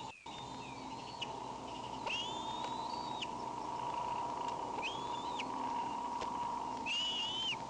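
Bald eagle calling: about four high, thin whistled calls, each under a second and gliding slightly upward, over a steady electrical hum.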